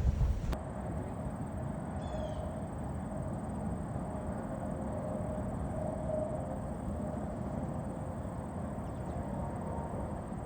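Steady low rumble of a vehicle, with a louder low rumble that cuts off about half a second in. A brief high bird chirp falls in pitch about two seconds in.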